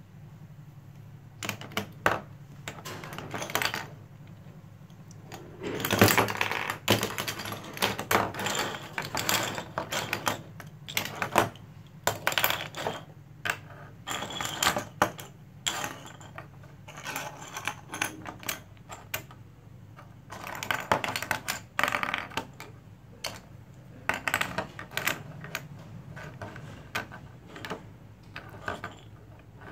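Plastic magnetic stick-and-ball building pieces clicking and clattering as they are snapped together and shuffled about on a tabletop, in irregular bursts of sharp clicks.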